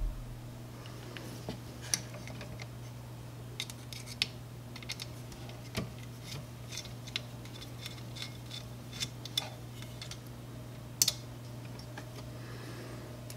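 Light metallic clicks and ticks of a screwdriver working small screws out of the Ultimaker 2+ print head's metal fan shroud, with a sharper double click about eleven seconds in, over a steady low hum.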